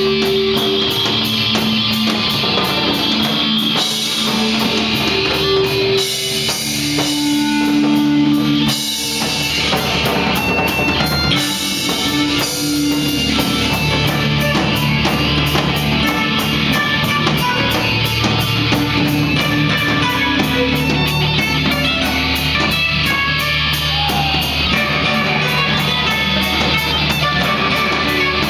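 Live rock band playing: electric guitars, one of them a red SG-style guitar, with bass and a drum kit keeping a steady beat.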